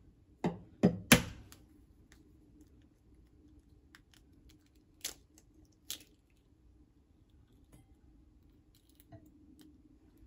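An egg knocked against the rim of a bowl to crack its shell: three quick, sharp knocks about half a second in, then two lighter clicks a few seconds later.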